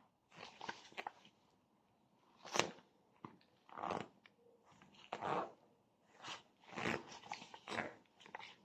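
Irregular short rustles and light clacks of a compact cordless impact wrench and its packaging being handled.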